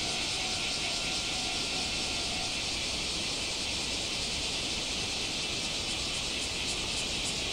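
A steady high-pitched hiss, with a faint thin tone fading out about two and a half seconds in.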